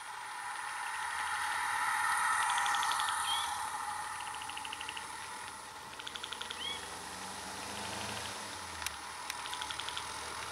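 Forest roadside ambience: a hazy insect-like drone swells for the first few seconds and then eases off. Short rapid trills repeat every couple of seconds, with a couple of brief upswept chirps. A faint low hum comes up in the second half.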